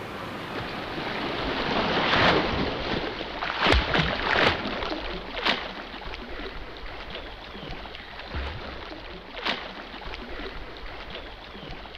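Seashore ambience: a rushing noise of wind and water that swells twice, about two and four seconds in, with a few brief sharper peaks.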